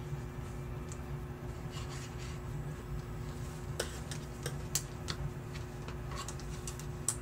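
Hands handling a knitted piece on knitting needles: soft rubbing of yarn and fabric, with a scattering of light clicks in the second half.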